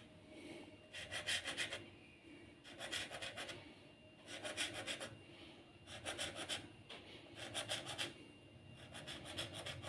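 Knife blade drawn through a sheet of rolled dough, cutting slits in it: six short rasping strokes, about a second and a half apart.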